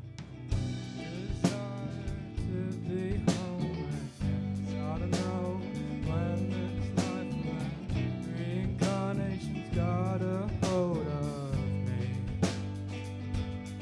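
A rock band playing a song live: a singing voice over guitar and a drum kit with regular beats.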